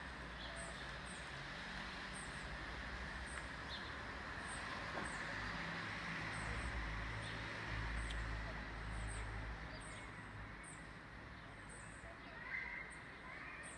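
Distant thunder rumbling low, swelling in the middle and fading again, over a steady outdoor hiss, with short high chirps repeating about once a second.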